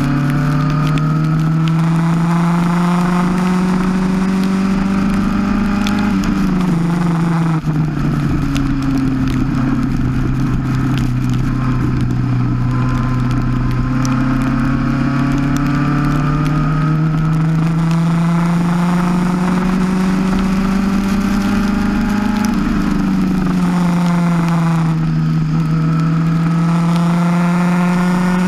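Onboard sound of a single-seater race car's engine running hard, its pitch climbing slowly, falling sharply about six seconds in and again about twenty-three seconds in as the car slows for corners, then climbing again, over a steady rushing noise.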